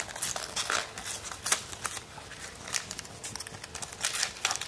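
Rafhan caramel pudding mix carton being opened by hand: an irregular run of small papery clicks, scrapes and rustles of cardboard flaps.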